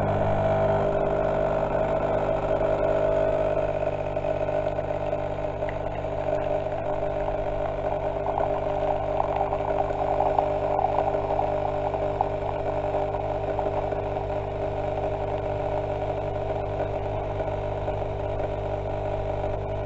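Coffee machine's pump humming steadily as it brews coffee into a mug in two streams.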